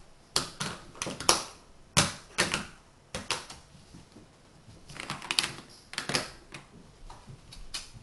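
Tegu magnetic wooden blocks clacking against one another as they are handled and snapped together: a run of sharp wooden clicks in irregular clusters, the loudest in the first few seconds and again in the middle.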